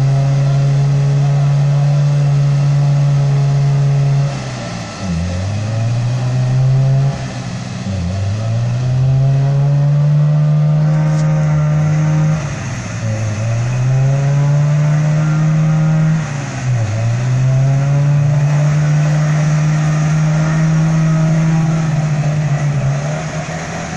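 Off-road 4x4's engine held at high revs while its wheels spin in deep mud. The revs drop briefly and climb again four times as the throttle is lifted and floored.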